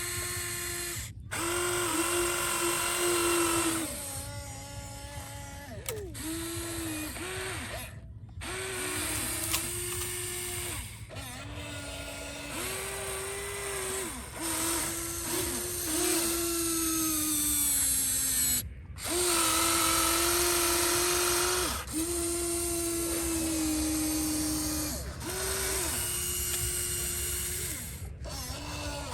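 Small electric motors and gearboxes of radio-controlled construction models whining in runs of a second or a few seconds, starting and stopping repeatedly, the pitch now and then sagging.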